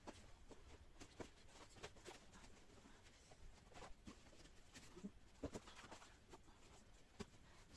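Near silence broken by faint, irregular light clicks and knocks, about two or three a second: shoes being handled and set on the shelves of a fabric-covered shoe rack, played back sped up.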